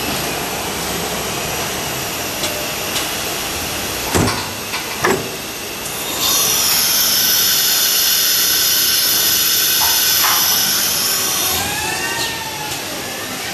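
CNC router spindle running with its bit cutting wood, with two sharp clicks about four and five seconds in as the automatic tool changer starts working. Then comes a loud, steady hiss of compressed air lasting about five seconds during the tool change, followed near the end by short whines that rise and fall in pitch.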